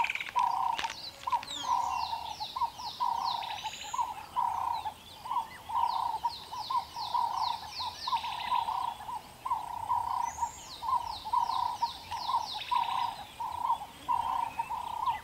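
Wild birds calling: a low note repeats steadily about twice a second, and runs of high, falling trills come and go over it.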